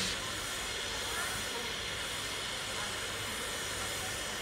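Steam hissing steadily from the standing steam locomotive Tornado, a Peppercorn A1 Pacific.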